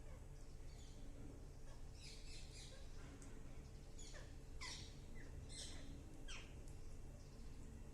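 Pet parrot calling faintly: a short burst of high chatter, then four or five short calls that slide downward in pitch.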